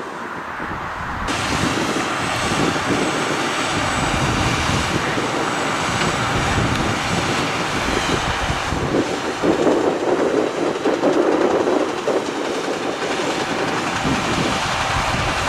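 Tractor engine running steadily, louder for a few seconds past the middle.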